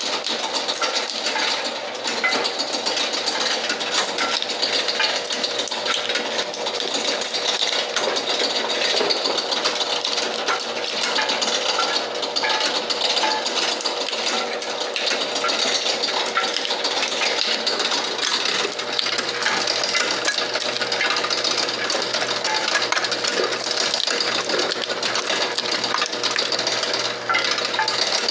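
Cashew nut shelling machine running: its spring-loaded cutting heads and rollers work in a steady, rapid clatter of dense clicks and knocks as split cashew shells drop onto the mesh tray, with a faint steady hum underneath.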